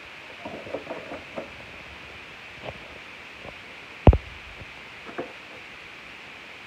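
Cardboard beer carton rustling and knocking as a cat noses into it and shoves it around, in scattered short scrapes and taps. There is one dull thump about four seconds in.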